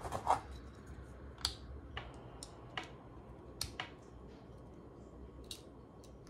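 3D-printed PLA plastic lock parts clicking and tapping as they are pressed together and a key is worked into them by hand. About eight or nine separate sharp clicks, the loudest near the start, thinning out toward the end.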